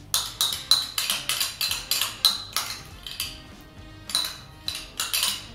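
Metal spoon clinking and scraping against a small cup, about three quick clinks a second with a short lull midway, as soft melted butter is scraped out into a mixing bowl. Background music plays underneath.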